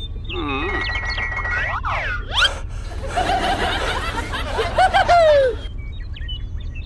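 Cartoon sound effects for a stop-motion character: swooping up-and-down glides, then a high-pitched comic chuckle that ends in a falling squeal about five and a half seconds in. A steady low hum runs underneath, and faint chirps follow near the end.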